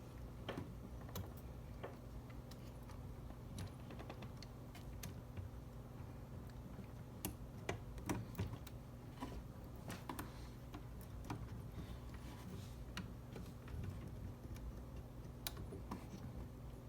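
Irregular light clicks and taps of small parts being handled and fitted into the cassette transport's solenoid on a Tascam 424, over a faint steady low hum.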